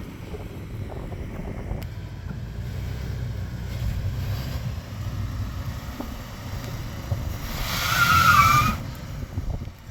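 Toyota 4Runner TRD Off-Road's 4.0-litre V6 working at low speed as the truck crawls up a steep rock climb, a steady low rumble. About eight seconds in, a louder stretch with a brief wavering squeal.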